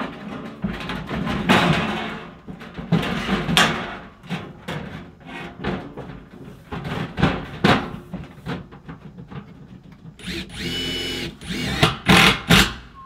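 Power drill run in short bursts among scattered knocks, with about a second of steady high-pitched whine near the end.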